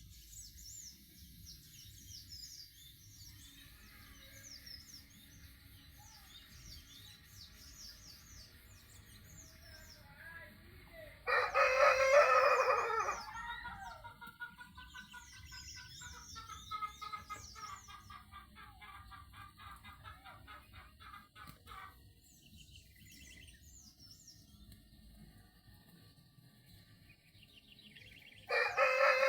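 Rooster crowing loudly twice, once about eleven seconds in and again near the end. Between the crows, hens cluck in quick soft pulses and small birds chirp faintly.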